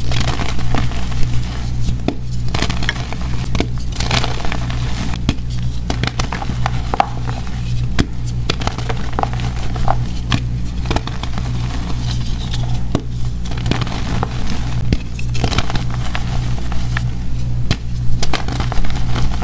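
Blocks of gym chalk squeezed and crumbled by hand over a bed of chalk powder: dense crisp crackling and crunching, with sharp snaps as pieces break off, over a steady low hum.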